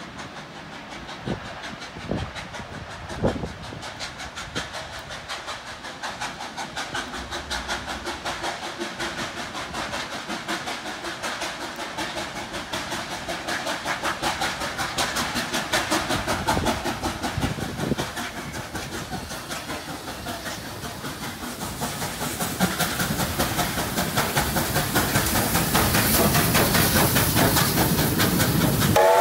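Steam locomotive 3801, a NSW C38 class 4-6-2 Pacific, approaching and passing close by, its exhaust beating in a fast, even rhythm that grows steadily louder as it nears, with a hiss of steam.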